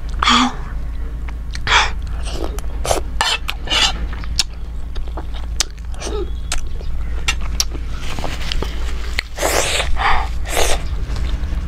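A person eating spicy chicken momos close to the microphone: chewing and wet mouth noises, broken by several sharp, hissing intakes of breath through the mouth, as from chili heat. A steady low hum runs underneath.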